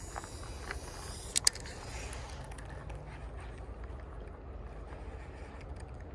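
Steady low rumble of wind on the microphone, with two sharp clicks about a second and a half in and a few faint ticks.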